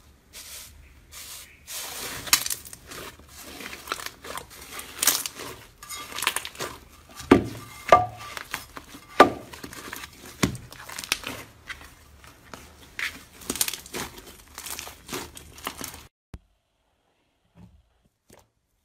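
Slime being pressed, stretched and pulled out of a tub by hand, making dense crackling with scattered sharp pops. It stops abruptly a few seconds before the end.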